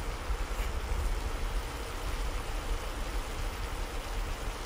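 Steady sizzling hiss of minced chicken cooking in a hot pan, over a low, even rumble.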